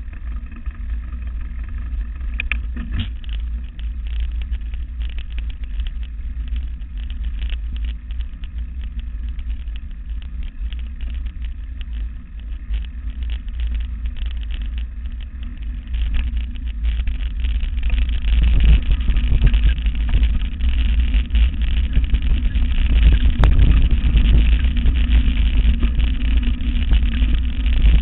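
Mountain bike towed at speed by sled dogs over a dirt forest trail, heard from the bike-mounted camera: a steady low rumble of wind and ride noise with constant small rattles and clicks. It grows louder a little past halfway as the pace picks up.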